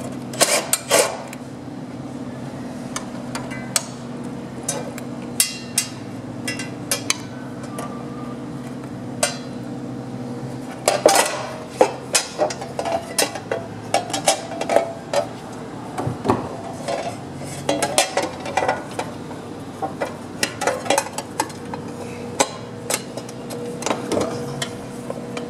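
Cordless impact driver working the hydraulic pump's mounting bolts in short, irregular bursts, with metallic clinks of tools and parts, over a steady low hum.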